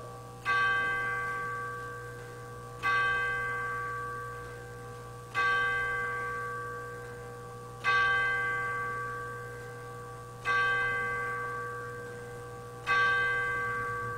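A single church bell tolling, struck six times at the same pitch about every two and a half seconds, each stroke ringing and fading before the next.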